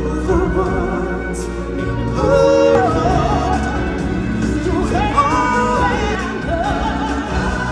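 Stage-show singers performing over band music, holding long, wavering notes.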